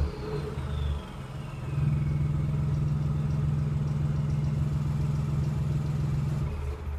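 Muffler-deleted exhaust of a 2015 Ford Focus's turbocharged 1.0 EcoBoost three-cylinder. The revs fall off with a high whistle sliding down in pitch. About two seconds in, the engine is held at a steady raised rpm with a loud drone, dropping back near the end.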